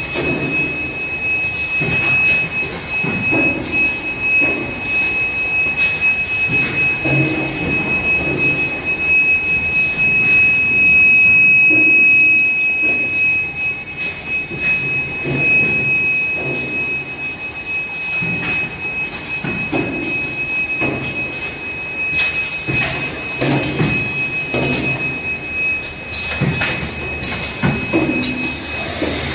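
Dishwasher detergent capsule production machine running, with repeated mechanical knocks and thumps over a steady high whine that cuts off near the end.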